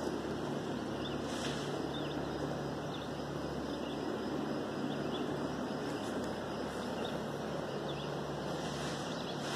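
Steady outdoor background noise: an even, wind-like hiss over a faint low hum, with a few faint short high chirps.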